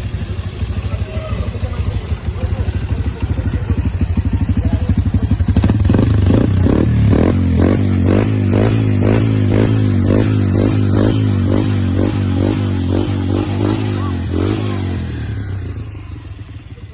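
Honda Bross 125 single-cylinder four-stroke engine running through a Kimoto aftermarket exhaust: it idles, then about five seconds in it is revved up and held with an even, rapid pulsing, and it drops back and fades near the end.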